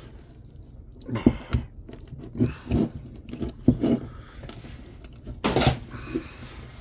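Hand tools working copper windings out of an electric motor's stator, with a few short, effortful tugs about a second apart and a louder, harsher burst near the end.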